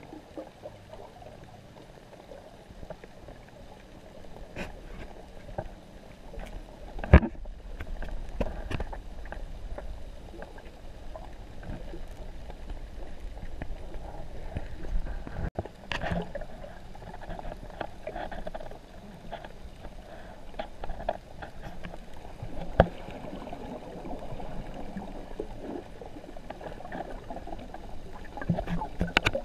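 Muffled underwater sound picked up by a camera held underwater: a steady, murky water wash, broken by a few sharp knocks and clicks. The loudest knock comes about seven seconds in.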